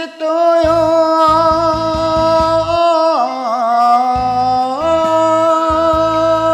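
Enka song: a singer holds long drawn-out notes on the syllable 'yo' over a karaoke backing of bass and percussion. The pitch dips with a wavering vibrato about three seconds in, then rises back to a held note near five seconds.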